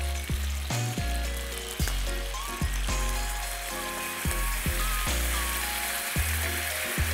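Bone-in pork spare ribs sizzling in a frying pan in their soy-and-honey sauce, a steady hiss that grows fuller in the second half. The ribs are glazed on the outside but still cooking through. Background music with a plucked bass line plays over it.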